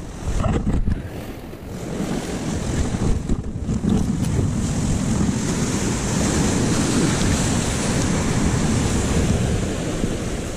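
Sea surf washing against shore rocks, with wind buffeting the microphone; a steady rush that builds over the first couple of seconds and then holds.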